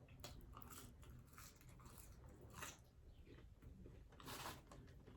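Faint chewing and crunching of food close to the microphone, a series of short crackly bites with a louder, longer crackle about four seconds in.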